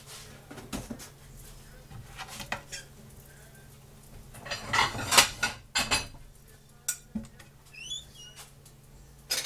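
Dishes and cutlery clinking and clattering: scattered knocks and clinks, busiest about halfway through, with a few brief squeaky rising sounds near the end.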